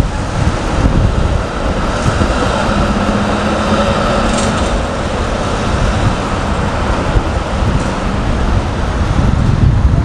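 A TTC streetcar passing in street traffic: a rumble of wheels on rail and a steady whine between about two and five seconds in, over the noise of passing cars.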